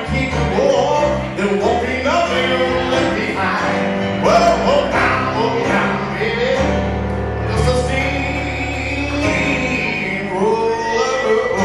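Live grand-piano music with a vocalist singing over it, over sustained low bass notes.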